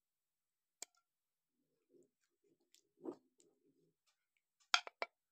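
Metal ladle lifting boiled meat pieces out of hot water in a pan: faint clinks and light sloshing, with a quick cluster of sharp clicks near the end.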